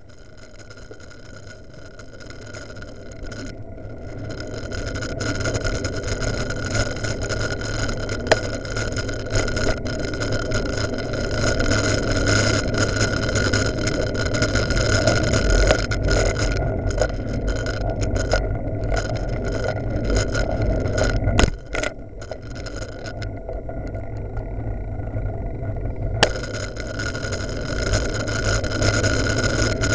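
Wind and road noise on the microphone of a recorder mounted on a moving bicycle, building over the first several seconds as speed picks up, with a faint steady high whine underneath.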